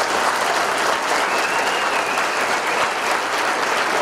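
A large audience applauding, with dense, steady clapping throughout.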